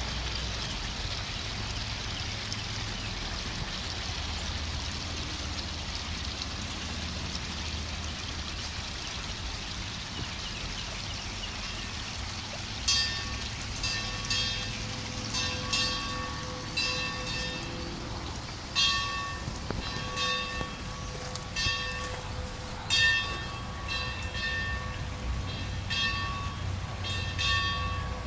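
A single bell rung over and over, starting about halfway through: the same clear ringing note struck somewhat unevenly about once a second over a steady background hiss.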